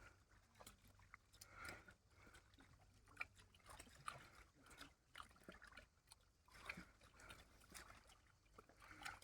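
Faint, irregular splashing and sloshing of shallow water being stirred by hand, with a few brief sharp clicks.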